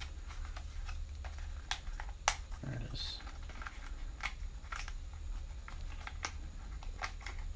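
Handling noise of a plastic toy quadcopter being turned over to take out its battery: scattered light plastic clicks and taps over a steady low hum.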